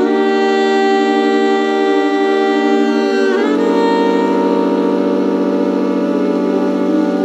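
Ambient music: a held chord of several sustained tones. About halfway through it shifts to a lower chord, with a brief gliding note at the change.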